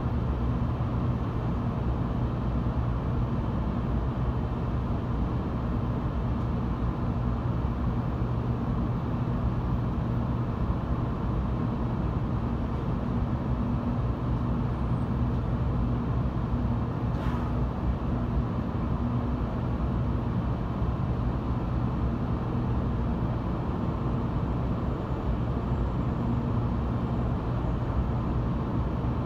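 Steady running noise heard from inside the cabin of an 800 series Shinkansen train: an even low rumble with a steady hum underneath.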